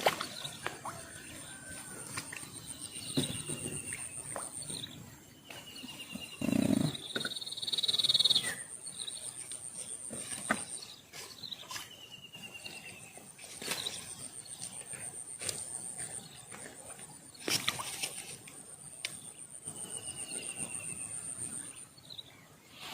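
Outdoor ambience: an insect trills in long stretches that start and stop, with several short falling whistle-like calls and scattered clicks and knocks. A brief, louder low sound comes about seven seconds in.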